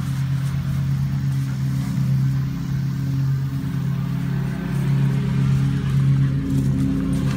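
Lawn mower engine running steadily, a constant low hum that swells a little in loudness partway through.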